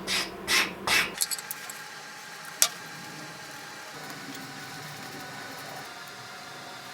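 Three quick rubbing strokes on the Swiss Army knife body as its surface is cleaned for gluing, then a single sharp tick about two and a half seconds in; after that only a faint steady hiss.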